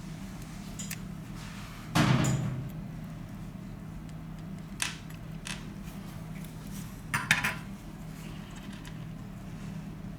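Small repair tools clicking and tapping against a phone and the workbench: a louder knock about two seconds in, a few lighter clicks after it, and a quick cluster of clinks a little past seven seconds, over a steady low hum.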